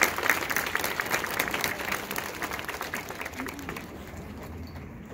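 Audience applauding as a marching band piece ends, the clapping dying away over a few seconds.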